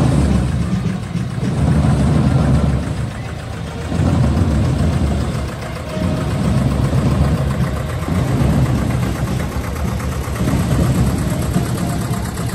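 A vehicle engine idling close by, a steady low rumble that swells and eases every couple of seconds.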